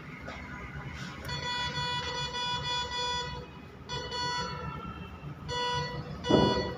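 MD-3500 metal detector sounding its buzzy alert tone in several bursts as a small metal bowl is passed toward its coil: one long tone of about two seconds, then a few shorter ones. The tone signals that the detector has picked up the bowl, at about 16 to 17 inches. A brief low bump comes near the end.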